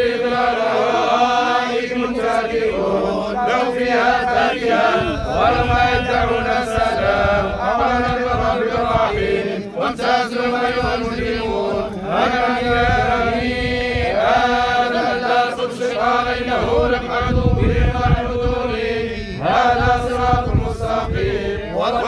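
Crowd of mourners chanting together at a burial: many voices holding a steady, droning religious chant. A low rumble joins from about five seconds in.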